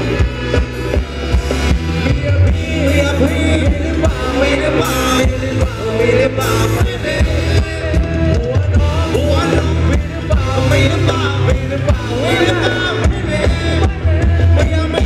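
Amplified live Thai ramwong dance-band music through a PA, a singer over a steady beat and heavy bass.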